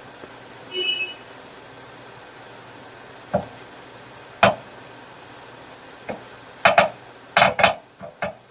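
A brief high tone about a second in, then a series of sharp clicks and knocks, several coming close together near the end, over a steady faint hiss.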